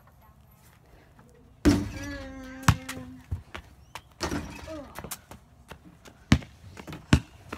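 Basketball thudding on a concrete patio around a missed free throw, with two sharp bounces near the end. A short, held voice-like tone is heard about two seconds in.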